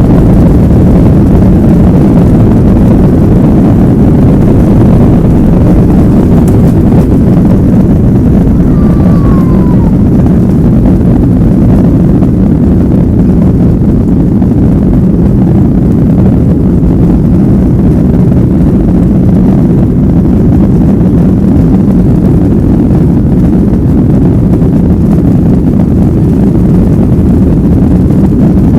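Boeing 737-800's CFM56-7B jet engines and airflow heard from inside the rear cabin during takeoff, a loud, steady, deep rushing hum. There is a brief falling whistle-like tone about nine seconds in.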